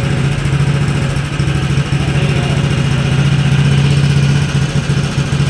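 Small engine running steadily at an even speed, a low hum that does not change in pitch.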